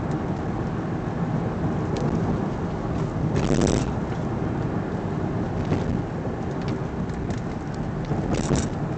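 Steady car cabin noise while driving in slow traffic: a low engine and tyre rumble, with two brief hissing swishes, one about three and a half seconds in and one near the end.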